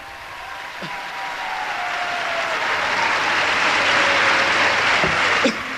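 Audience applauding, swelling over the first few seconds and falling away near the end, with a faint tone sliding slowly down in pitch beneath it.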